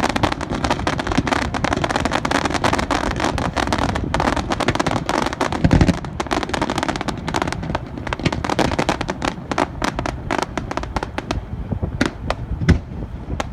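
Fireworks display: a dense, rapid crackle of many small bursts, with a deep boom about six seconds in, thinning to scattered cracks near the end.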